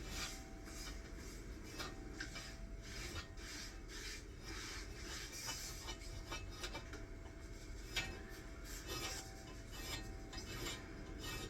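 Rapid repeated scraping strokes by hand on a part, about two to three a second, with one sharper click about eight seconds in.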